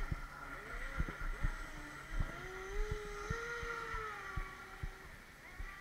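Electric RC speedboat's motor whining as the boat runs across the water. Its pitch climbs about two seconds in, holds, then sags and fades near the end, with a few soft thumps along the way.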